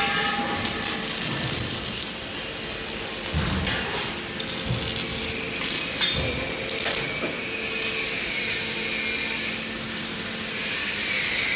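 Metalworking factory noise: a steady hiss with scattered metallic knocks and clanks, with welding on the steel wheelbarrow frames going on in the shop.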